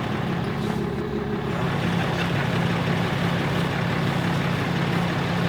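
A vehicle engine running steadily, with a constant low hum and an even rush of road and wind noise.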